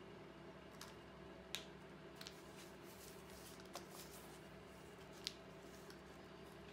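Near silence: room tone with a steady low hum and about five faint light clicks and taps as pens and the collage board are handled and the board is turned on the table.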